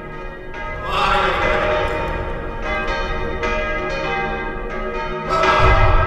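Church bells pealing, a new stroke about every second, each ringing on over the last. Louder strokes come about a second in and near the end, the last with a deep hum under it.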